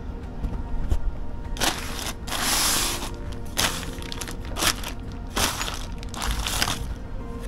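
Clear zip-top plastic bag crinkling as it is handled and pulled open, in about half a dozen separate bursts, over background music with steady held tones.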